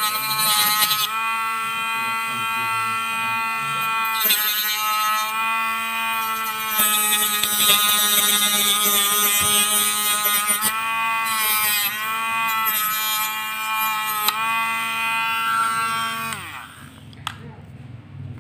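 Green mini rotary tool (small hand-held electric drill/grinder) running with a steady high motor whine, its pitch sagging briefly several times as the bit bites into a rolled-paper part. It winds down and stops about 16 seconds in.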